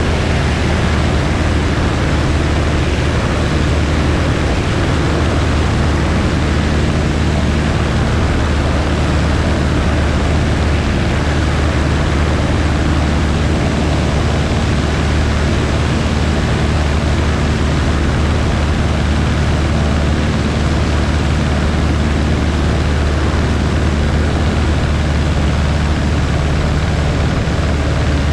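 Light airplane's piston engine and propeller running at steady power, a constant low drone with no change in pitch.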